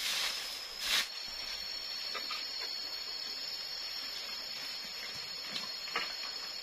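Twig broom swishing over dry leaves and dirt for about a second. After that comes a steady high drone of forest insects, with a few light ticks and rustles.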